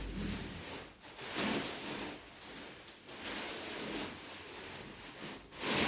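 Rustling and rubbing of a mattress and its packaging being handled, in uneven swells.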